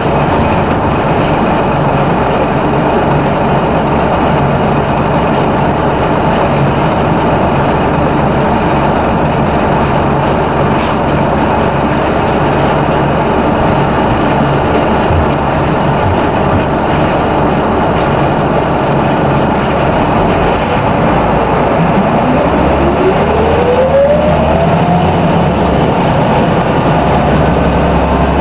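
Scania K93CRB single-deck bus on the move, heard from inside the passenger saloon: its nine-litre six-cylinder diesel and the road noise run steadily, and a whine rises in pitch for a few seconds about three-quarters of the way through as the bus picks up speed.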